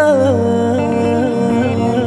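Turkish uzun hava (bozlak) music: a male voice sings a melismatic line that wavers in pitch, over bağlama accompaniment and a steady low drone.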